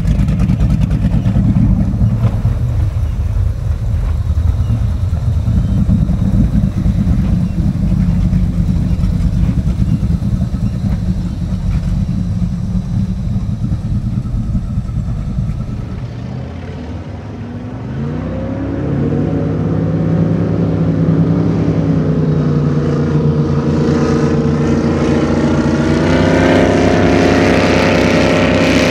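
Deep, loud rumble of high-performance powerboat engines. About sixteen seconds in it gives way to a single engine note that climbs in pitch in several steps as a boat throttles up.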